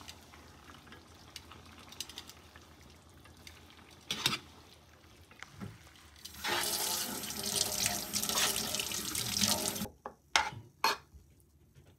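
Kitchen water running in a steady stream for about three and a half seconds, starting about six seconds in and stopping abruptly. A single sharp clink comes before it, and a few quick knocks of metal on a pan follow just after it.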